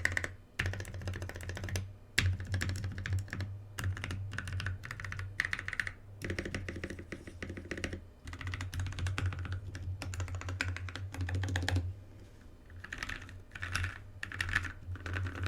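Typing on a Drop Carina mechanical keyboard with lubed Novelkeys Cream linear switches, a brass plate and PBT keycaps: fast runs of keystrokes with short pauses between them. The keystrokes thin out about twelve seconds in, then pick up again in a few quick bursts.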